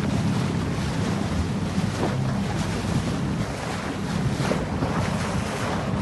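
Wind buffeting the microphone and sea water splashing around a boat, over the low, steady hum of the boat's engine.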